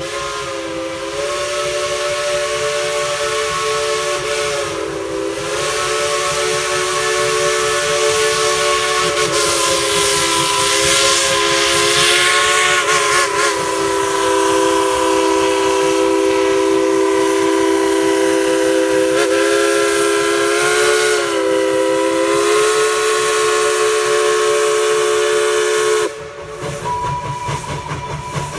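Steam locomotive's whistle blowing one long, loud blast of several notes at once, wavering briefly in pitch a few times. It cuts off sharply about 26 seconds in, leaving the sound of the train running.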